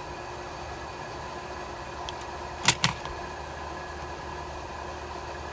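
Steady mechanical hum with two sharp clicks in quick succession about halfway through, from small parts and needle-nose pliers being handled on a workbench.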